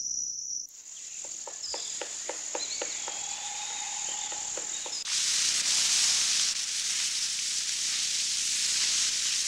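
Insects trilling, then a woodpecker tapping at a pine trunk a few times a second over a steady insect buzz, with a brief bird call. About five seconds in, a louder steady hiss of fire burning through the forest takes over.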